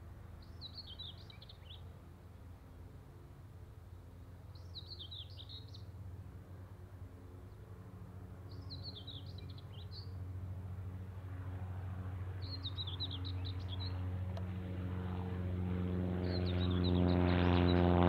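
Single-engine Piper PA-28 light aircraft taking off, its propeller engine drone growing steadily louder as it lifts off and climbs past, loudest near the end. A songbird sings a short phrase about every four seconds, five times in all, over the engine.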